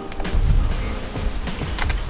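Background music with a steady low beat, over which a couple of light clicks come from a screwdriver turning a small screw out of an electric scooter's plastic front fender.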